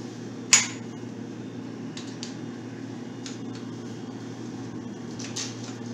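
Steel extension pieces of a porta power jack kit clacking together as they are handled and taken apart: one sharp clack about half a second in, then a few lighter clicks, over a steady low hum.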